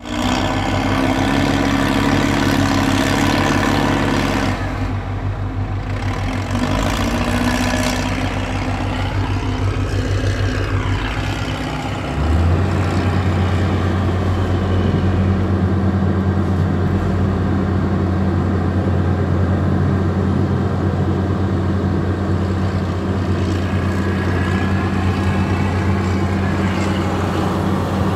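Diesel engine of a hydraulic excavator running, heard from inside its cab. Its note shifts up and down for the first twelve seconds or so, then settles into a steady low hum.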